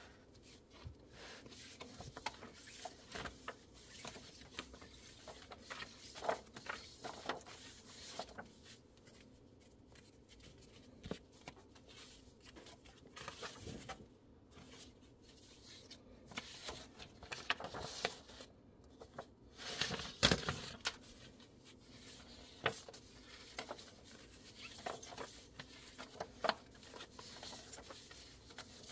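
Paper sales brochures being handled and leafed through: irregular light rustling and sliding of sheets with soft taps, and a louder page flap about two-thirds of the way through.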